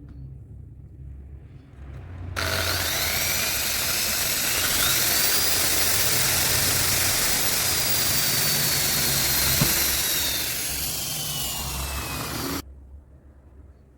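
A small electric motor, likely a power tool, running steadily with a loud hiss and a whine that climbs and then slowly sinks in pitch. It starts abruptly about two seconds in and cuts off abruptly near the end.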